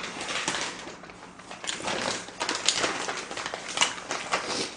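Close-miked chewing of food: a quick, irregular run of small crackling clicks from the mouth.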